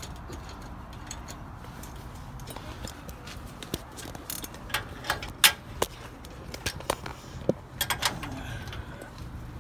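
Scattered metallic clicks and clanks of hand tools and parts being handled during suspension work on a truck, over a steady low rumble. The sharpest knock comes about five and a half seconds in, with a quick cluster near eight seconds.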